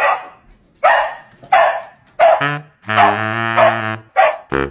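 A dog barking in short, sharp barks, four or five in the first two seconds and two more near the end. About three seconds in, a long, low, steady note is held for about a second.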